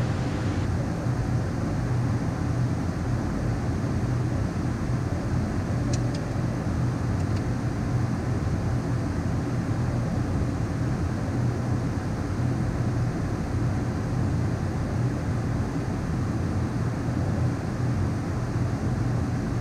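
Steady cabin noise in the cockpit of a Beechcraft Premier 1A twin-turbofan business jet in descent: an even rush of airflow over a low, constant hum.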